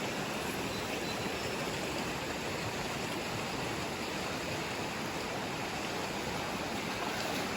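River water rushing, a steady, unbroken noise.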